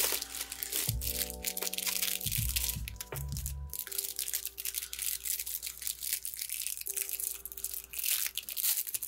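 Clear plastic packaging bags crinkling and rustling as hands rummage through them in a cardboard box, over lo-fi background music with held chords and a bass line that drops out about four seconds in.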